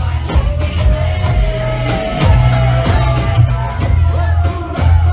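R&B song performed live over a club sound system: a heavy bass and drum beat, with a voice holding one long sung note through the middle.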